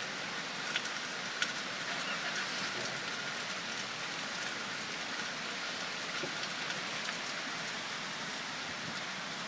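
Steady rain falling, an even hiss with a couple of faint ticks early on.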